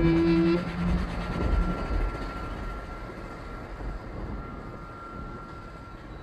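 Experimental ambient music: low held drone notes stop within the first two seconds, leaving a rumbling, noisy wash with a faint high held tone that slowly fades.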